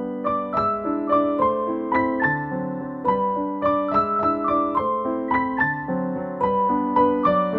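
Background piano music: a melody of notes played a few a second over held lower notes.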